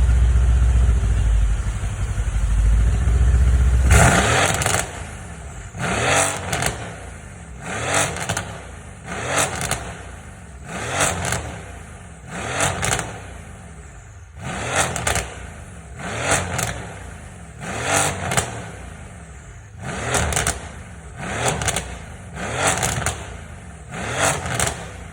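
Mercedes-AMG C63 S's twin-turbo V8 through a Capristo exhaust, idling with a deep rumble for about four seconds. Then it is revved in short, sharp blips about every second and a half, around a dozen in a row, each rising and falling in pitch.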